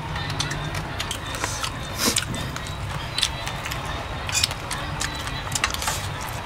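People eating fried rat and green mango salad by hand: chewing, lip smacks and food handling, heard as a scatter of short sharp clicks over a steady low rumble.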